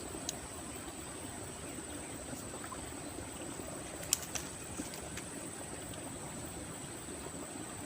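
Outdoor ambience: a steady low rush with a constant thin high-pitched whine over it, and a few sharp clicks about four seconds in.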